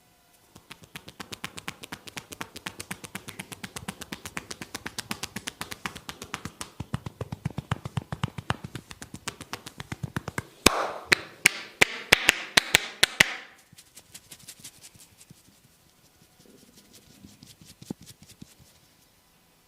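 A barber's hands tapping rhythmically on a person's head during a head massage, several quick taps a second. About ten seconds in come about ten much louder, sharper slaps in quick succession, and near the end a few faint, scattered taps.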